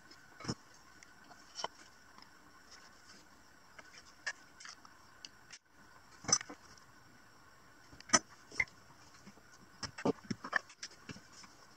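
Scattered light clicks and taps of small parts being handled during soldering of wires onto an LED strip, with a few sharper knocks, the loudest about six and eight seconds in and a short flurry near ten seconds, over a faint steady background hum.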